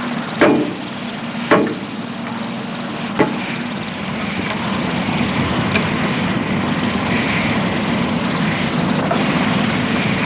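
Hammer striking a metal helicopter rotor link three times, about half a second, a second and a half and three seconds in, bashing the bent link straight. A steady mechanical hum runs underneath.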